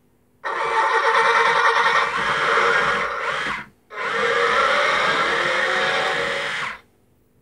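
Sound effects from a Disney Cars talking Tow Mater money box's built-in speaker: two clips of about three seconds each, a busy wavering sound, separated by a brief break and each cutting off sharply.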